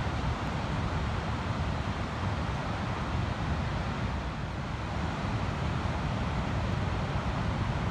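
Ocean surf washing steadily onto a sandy beach, an even rushing with no single wave standing out, under a low rumble of wind on the microphone.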